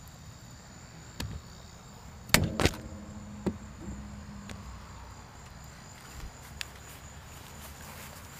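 Insects chirring steadily at a high pitch, broken by a few sharp knocks and clicks; the two loudest come close together just over two seconds in.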